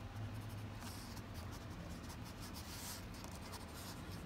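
Faint scratching and rubbing of a pink watercolour crayon drawn across sketchbook paper in short colouring strokes.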